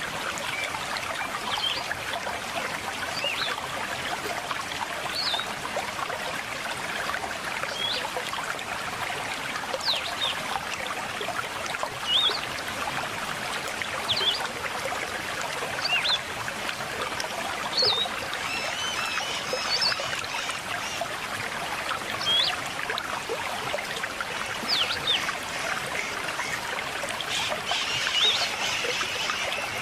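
River water flowing and trickling steadily, with short, high bird chirps repeating every second or two over it.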